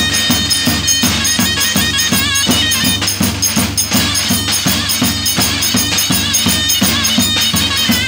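Zurna playing a wavering, ornamented folk dance melody over two davul drums beating a steady rhythm.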